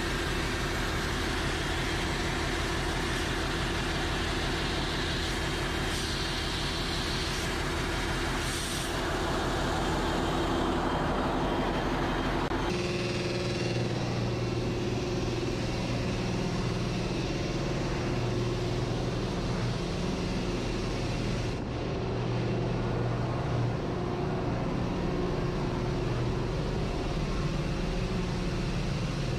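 Tanker engine-room machinery running: a loud, steady drone with several steady hums over a broad mechanical noise. A little under halfway through the sound changes abruptly, and a stronger, deeper hum takes over.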